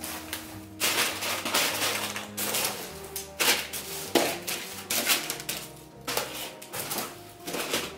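Background music with a percussive, clicking beat over held notes.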